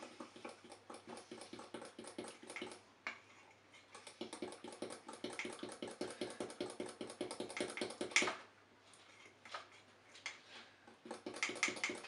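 A metal fork beating thick chocolate mug-cake batter in a mug: rapid, regular clinks of the fork against the mug. The clinks pause briefly about three seconds in and grow sparse and quieter for a while after about eight seconds.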